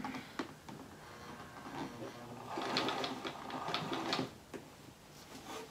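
Sewing machine stitching through the layers of a quilt, its needle running in a fast clatter that grows louder from about two and a half to four seconds in, then slows.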